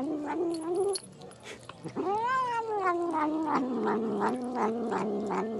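Domestic cat yowling on cue in drawn-out wavering cries, the chant-like call its owner calls "namu namu": one short cry ending about a second in, then a long one of about four seconds that rises, falls and pulses about three times a second near the end.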